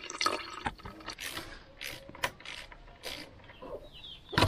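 Engine coolant trickling and dripping from a detached radiator hose into a plastic bucket, with scattered short splashes and clicks. A louder burst of handling noise comes near the end.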